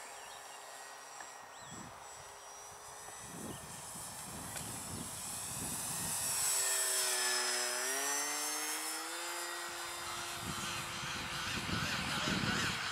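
Small electric radio-controlled foam-board plane in flight, its motor and propeller whine growing louder as it makes a low pass. The pitch dips as it goes by about eight seconds in, then rises a little again as it climbs away.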